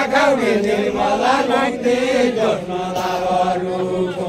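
A group of voices singing a Deuda folk song together in a slow, chant-like unison, with no instruments.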